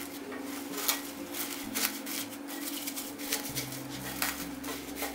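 Plastic cling film crinkling and crackling in quick, irregular bursts as it is stretched over a glass bowl of dough and pressed down around it.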